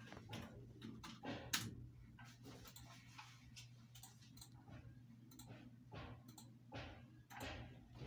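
Faint, irregular clicks of a computer mouse and light knocks from handling at the desk, over a low steady hum.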